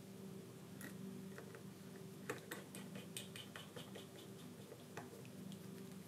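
Faint, scattered small clicks and taps from handling a screwdriver and tablet parts on a workbench, over a faint steady low hum.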